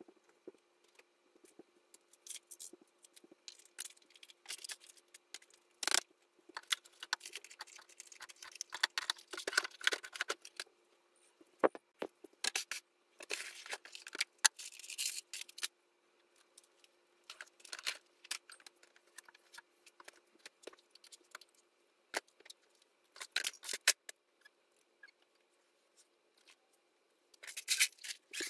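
Small objects and plastic storage bins being handled and put away: irregular rustling, clicks and clattering, busiest in two stretches in the first half, over a faint steady hum.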